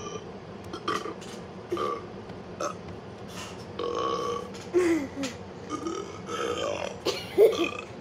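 A rapid series of short burps, about a dozen in eight seconds, several sliding down in pitch; the loudest comes near the end.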